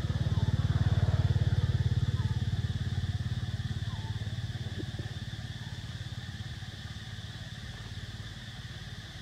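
A motor vehicle engine with a low, pulsing drone, loudest about a second in and then slowly fading away.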